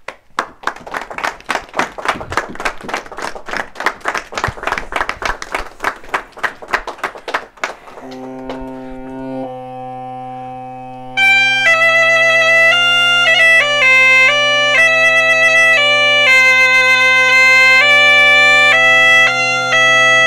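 Hand-clapping for about eight seconds. Then an Asturian bagpipe (gaita) is blown up: its drone sounds a steady low note about 8 s in, and about 11 s in the chanter starts a loud melody over the drone.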